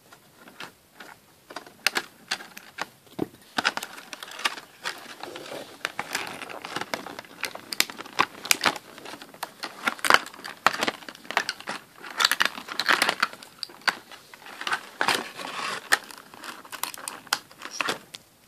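Clear plastic and cardboard toy packaging crinkling and rustling as a doll is worked out of its box, with many sharp irregular clicks and snaps.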